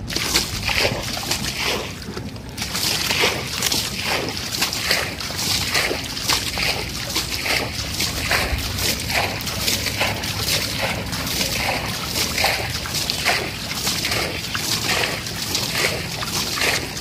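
Water splashing and sloshing over and over, about two or three splashes a second.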